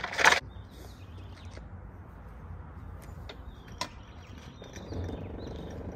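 Floor jack being worked to let the car down: a brief loud clatter at the start, a few light clicks about three to four seconds in, then a steady low drone from about four and a half seconds in.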